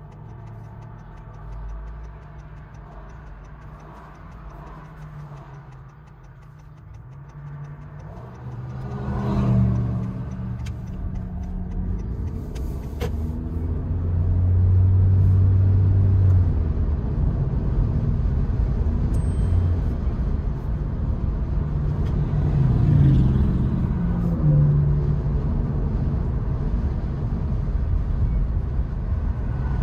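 Car interior road and wind noise with the sunroof open: quiet and steady at first while the car waits at a junction, then building about a third of the way in as it pulls away, and settling into a steady, louder low rumble of tyres and wind at road speed.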